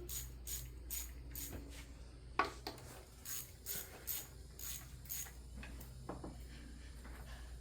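Irregular light metallic clicks and clinks of hand tools and small parts being handled during engine work, about one or two a second, over a low steady hum.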